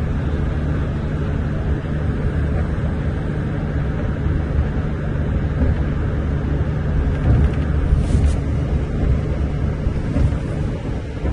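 Steady low rumble of a moving bus heard from inside the cabin: engine hum and road noise, with a brief scratchy noise about eight seconds in.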